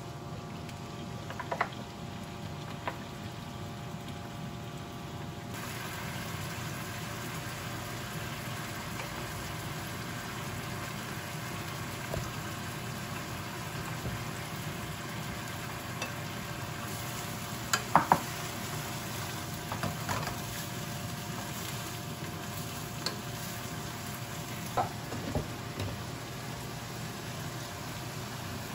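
Meat and vegetables sizzling as they are stir-fried in a frying pan, the sizzle getting fuller about five seconds in. Now and then a utensil taps and scrapes against the pan, loudest with two sharp knocks about 18 seconds in.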